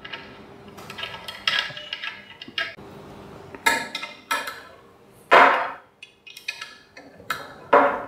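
Small metal clicks, scrapes and knocks of a hex key turning in the screws that fix a hydrofoil quick-release module to the mast head, tightening them down. The knocks come at irregular intervals, the loudest a little past halfway with a short ring.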